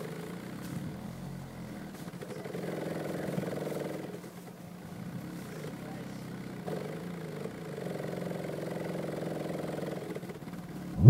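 Bare Stereo Integrity HT 15-inch subwoofer driver, out of any box, playing a deep bass tone while driven hard at long cone excursion. It comes across as a steady buzzy drone that swells twice, with a sharp loud swoop right at the end.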